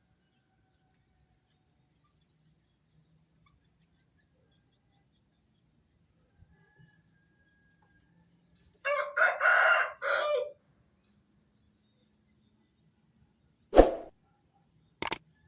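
An Aseel rooster crows once, about nine seconds in, in a crow lasting about a second and a half; before it there is near silence. Near the end comes a sharp knock, then a short click.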